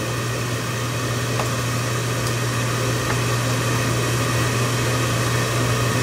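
Draft inducer motor of an 80% AFUE gas furnace running with a steady hum. This is the pre-purge before the hot surface igniter comes on.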